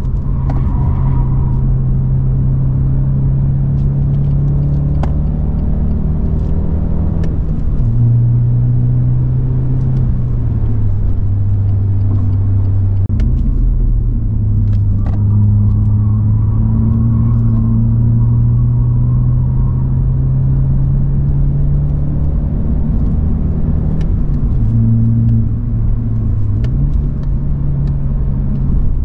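BMW 120i's B48 2.0-litre turbocharged four-cylinder engine running hard under load, heard onboard, with road and tyre noise underneath. Its pitch holds, then drops sharply about seven and a half and eleven seconds in, jumps back up around thirteen seconds, climbs slowly, and drops and rises again near the end, as gears change and the car speeds up and slows.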